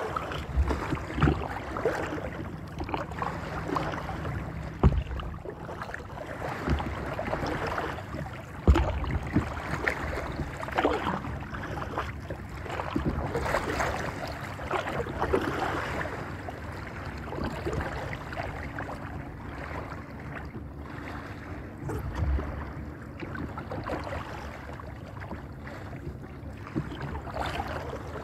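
Water slapping and splashing against the plastic hull of a small paddle craft and under the paddle as it is paddled across choppy lake water, in a steady irregular wash. Two sharp thumps stand out, around five and nine seconds in.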